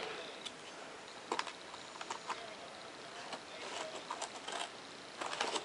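Hands handling a foam-board cutout against foam board and taped paper: scattered faint clicks and light crinkles, a little busier near the end.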